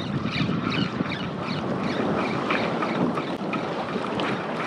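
Choppy sea water splashing and lapping against a kayak hull, with wind buffeting the microphone.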